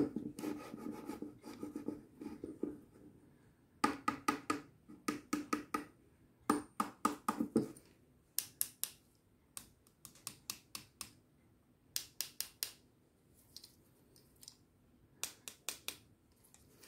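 A steel knife blade is pulled repeatedly through the wheels of a Surmene roller knife sharpener, scraping and grinding against the discs. It opens with a long rasp, then goes on in groups of quick strokes that grow shorter and quieter from about halfway through.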